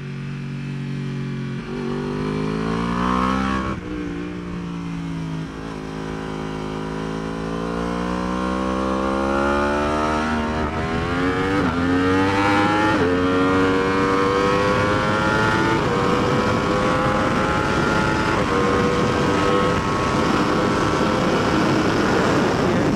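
Yamaha R1's crossplane inline-four engine accelerating hard, its pitch climbing and then dropping at each of several upshifts, before holding high and nearly steady near the end. Wind rush grows under it as speed builds.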